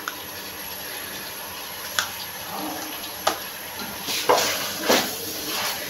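Wooden spatula stirring chicken gizzards, liver and onions in an aluminium karahi over a faint steady frying sizzle: two sharp taps of the spatula on the pan about two and three seconds in, then scraping strokes through the mix near the end.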